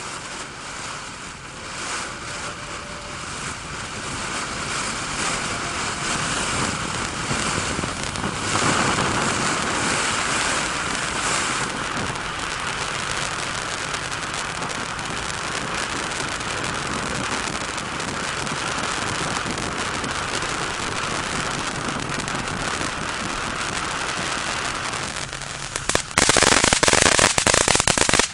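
Keystone Fireworks Maximum Overload ground fountain burning with a steady hissing spray of sparks. About 26 seconds in it switches suddenly to a louder, rapid crackling as its crackle effect begins.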